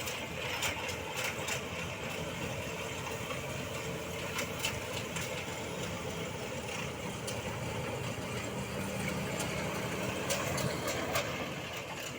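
Rice combine harvester's engine running steadily as it works through the paddy, with occasional light clicks.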